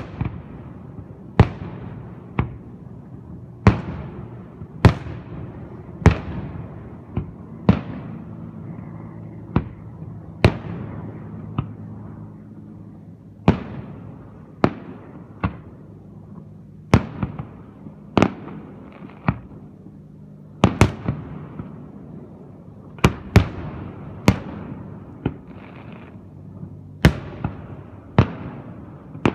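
Aerial firework shells bursting in a steady string of sharp bangs, about one every second or so, each trailing off in an echo.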